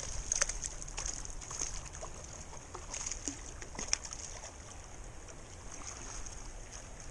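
Hooked fish splashing at the surface in a few sharp bursts as it is drawn into a landing net, over the steady rush of the river. The splashes fall away about four seconds in, leaving the flowing water.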